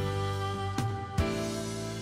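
Instrumental background music with held, sustained notes; a new note or chord is struck three times.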